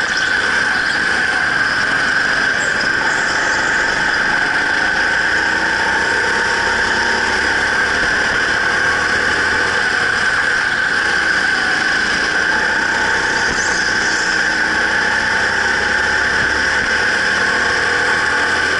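Racing go-kart running at race pace, a loud steady high whine that holds without letting up.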